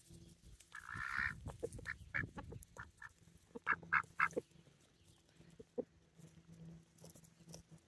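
Domestic ducks quacking softly while they feed: one raspy quack about a second in, then a few short, quiet calls, three close together near the middle.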